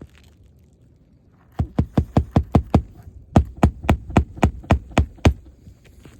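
Hammer driving roofing nails into a replacement asphalt shingle: two quick runs of sharp blows, about four to five a second, with a short pause between them.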